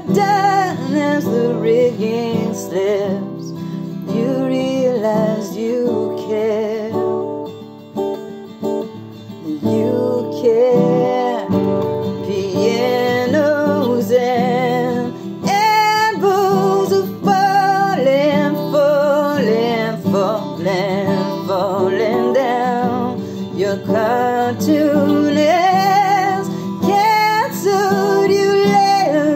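A woman singing over a strummed acoustic guitar, her held notes wavering with vibrato. The song goes softer for a few seconds in the middle.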